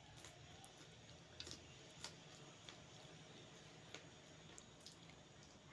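Faint chewing of a crisp golgappa: scattered soft crunches and mouth clicks over near silence.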